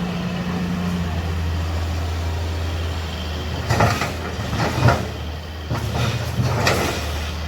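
Heavy machinery engine running steadily at a low hum, with several short, sharp bursts of noise about halfway through and again near the end.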